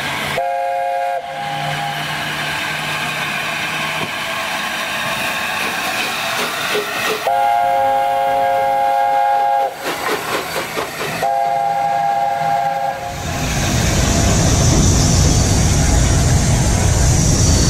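LNER Class A4 steam locomotive's chime whistle sounding three times (a short blast, a long blast, then a shorter one) over steam hiss as the engine runs through. From about 13 seconds in, a loud steady rumble and wind noise from the moving footplate takes over.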